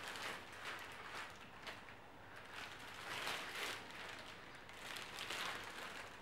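Plastic wrapping around a telescope tube rustling and crinkling softly as the tube is handled, swelling a few times.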